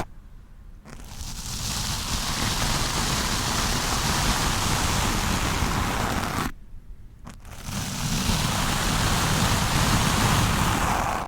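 Stiff-bristled wooden brush rubbed hard over a microphone: a loud, continuous rush of noise, broken by two short pauses, one at the very start and one about two-thirds of the way through.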